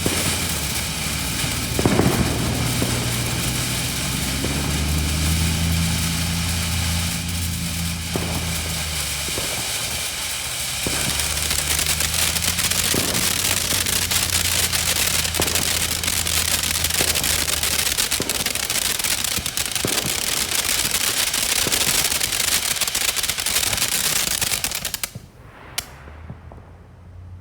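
Consumer firework fountain spraying sparks with a dense hiss and rapid crackling, over a steady low hum. The spray stops suddenly about 25 seconds in as the fountain burns out.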